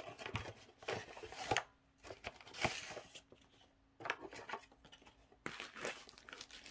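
Clear plastic sleeve crinkling in irregular bursts as a rolled diamond painting canvas is handled and slid out of it, with a short pause in the middle.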